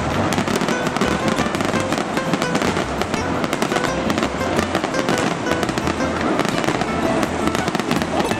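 Aerial fireworks display: a dense run of bangs, pops and crackling as many shells burst overhead, with deep thuds beneath.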